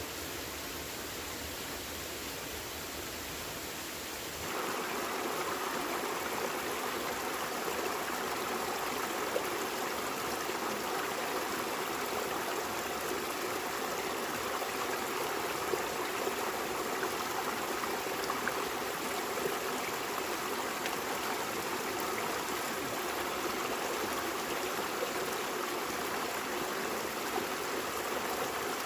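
Steady rushing of flowing water, like a stream. It becomes louder and fuller about four and a half seconds in, then runs on evenly.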